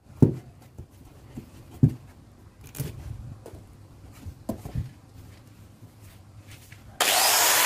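A coconut handled on a plywood board: a few sharp knocks and light scraping as loose husk fibres are picked off the shell. Near the end the steady running noise of an electric angle grinder with a sanding disc comes in abruptly and loud.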